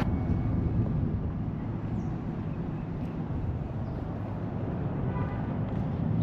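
Steady low rumble of town street ambience, with faint traffic noise.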